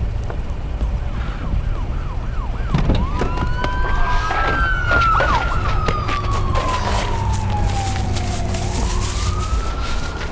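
Emergency vehicle siren: a few quick yelping sweeps about two to three seconds in, then a slow wail that falls over several seconds and rises again near the end. A steady low rumble runs underneath.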